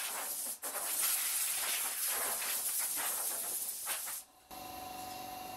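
Compressed-air blow gun hissing in several bursts as it blows sawdust off the saw and bench. It stops abruptly about four seconds in, leaving a quieter steady hum.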